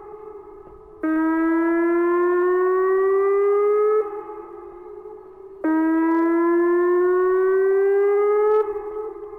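Electronic outdoor warning siren sounding a whoop tone: a loud tone that starts suddenly, rises slowly in pitch for about three seconds and cuts off, twice, with echo dying away in the pauses of about a second and a half between.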